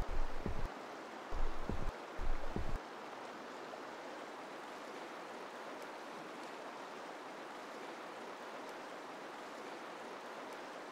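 River rapids rushing steadily below the bridge. Three low rumbling gusts of wind hit the microphone in the first three seconds.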